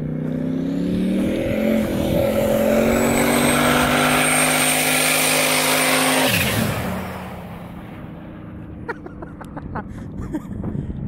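Turbocharged LS V8 pickup accelerating hard on drywall-screw-studded tires. Its engine note climbs for the first couple of seconds, then holds high and loud. About six and a half seconds in, the pitch drops sharply as the truck passes, and the sound fades.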